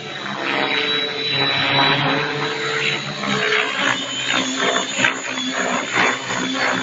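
Radio-controlled T-Rex 700 helicopter flying low past, its rotor and drive running at flight speed. It grows louder over the first two seconds.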